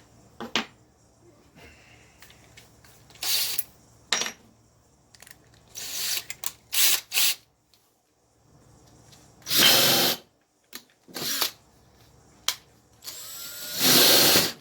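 Electric drill with a 5/16-inch bit boring through Homasote roadbed, run in a series of short bursts and then a longer, louder run near the end.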